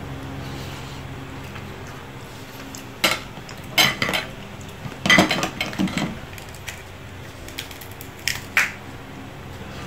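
Boiled lobster shell being cracked and pulled apart by hand, with a small fork clinking against the shell and the plate. Sharp cracks and clinks come in short clusters starting about three seconds in, the busiest a little past the middle and the last near the end, over a low steady hum.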